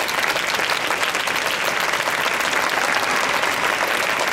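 Audience applauding steadily: many hands clapping in a dense, even patter.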